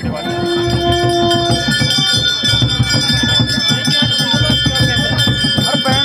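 Music with a steady, rhythmic drum beat and sustained ringing tones; a single held note sounds for about a second and a half near the start.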